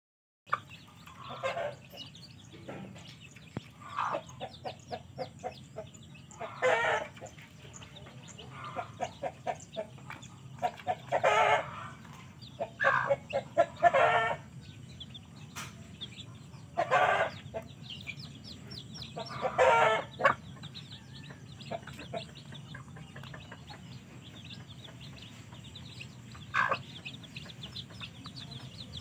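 A hen clucking while her chicks peep around her. Five or six louder chicken calls of about a second each cut in at intervals through the first two-thirds.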